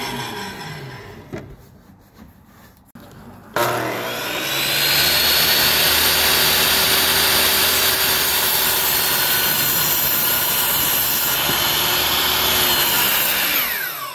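Electric miter saw. The blade is spinning down at first. About three and a half seconds in the motor starts with a rising whine, then runs steadily while the blade cuts through a wooden board, and it winds down with a falling pitch near the end.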